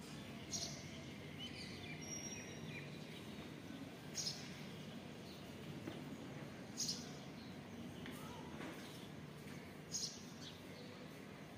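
Steady low outdoor background rumble, with brief high bird chirps every few seconds, four in all.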